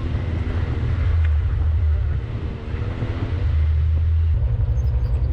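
Side-by-side UTV engine running under way, a steady low rumble with a slightly wavering engine note.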